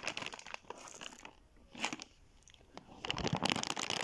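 Holographic foil packaging of a Na Na Surprise doll crinkling and crackling as it is blown up through a drinking straw. The crinkling comes in patches with short quiet gaps, growing denser near the end as the bag fills.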